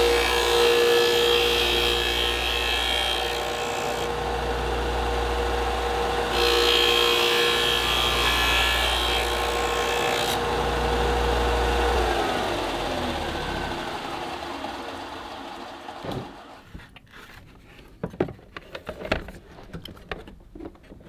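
Porter-Cable disc sander running with a steady hum, grinding the edge of an ABS plastic panel in two passes of a few seconds each; then the motor winds down with a falling hum. Near the end, a few light clicks and knocks.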